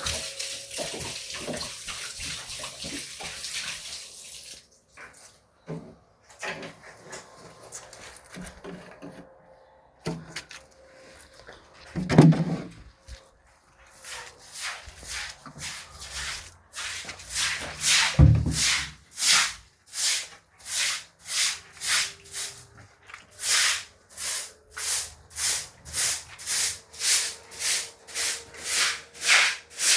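Water pouring and splashing for the first few seconds, then a wet cloth scrubbed hard against a surface in regular back-and-forth strokes, a little under two a second, getting stronger toward the end. A couple of dull thuds come between them.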